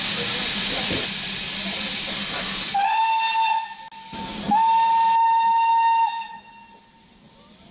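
Steam locomotive hissing steam, then sounding its whistle twice on one steady pitch: a short blast followed by a longer one. Heard from a carriage window of the train.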